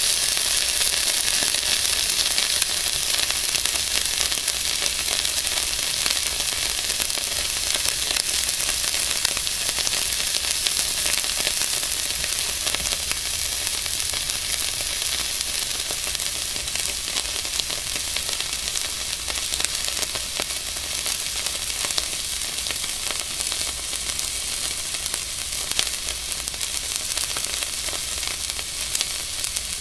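A red-hot nickel ball sizzling as it sears into a raw ribeye steak: a steady crackling hiss of the meat's surface, fat and juices boiling off, easing slowly.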